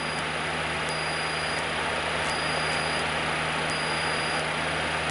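Cessna 152's four-cylinder Lycoming engine and propeller droning steadily in cruise, heard from inside the cockpit as an even low hum under a broad hiss, with a thin steady electrical tone.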